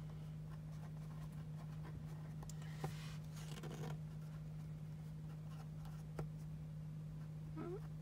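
Pen writing on planner paper: soft, faint scratching with a few light taps, over a steady low electrical hum.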